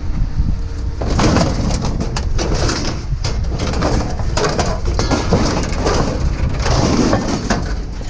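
Bird calls, heard over a steady low rumble and scattered knocks and clatter.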